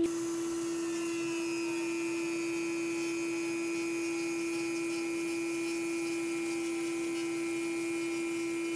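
Small handheld power sander with a dust-extraction hose sanding cured gel coat over a fiberglass repair with 80-grit paper: a steady high-pitched buzz that cuts off suddenly at the end.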